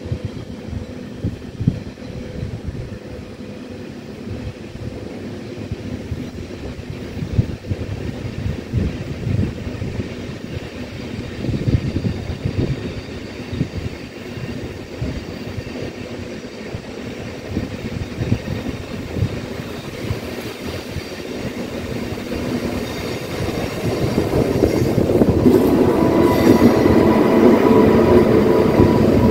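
Deutsche Bahn ICE 1 train approaching and entering a level crossing. A low rumble grows clearly louder over the last five seconds as the power car arrives, with a steady whine on top.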